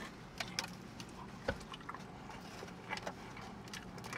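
A person biting into a sub sandwich on wheat bread and chewing it: faint, scattered crunches and wet mouth clicks, a few to each second.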